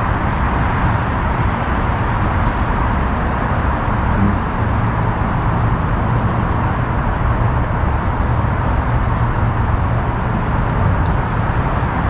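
Steady, unbroken traffic noise from the I-5 freeway running beneath the park: a constant wash of many vehicles with no single car standing out.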